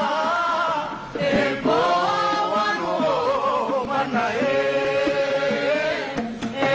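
Chanted vocal music with long held, slowly gliding notes, dipping briefly about a second in.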